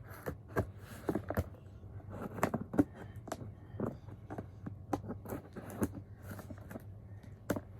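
Hands handling an iPhone box and its packaging: irregular light clicks, taps and scrapes, over a faint steady low hum.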